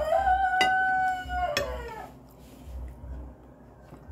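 A rooster crowing: one long call that rises, holds a steady pitch and falls away about two seconds in.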